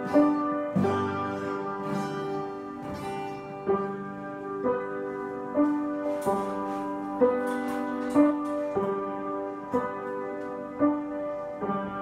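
Acoustic guitar being strummed, a chord struck about once a second and left to ring.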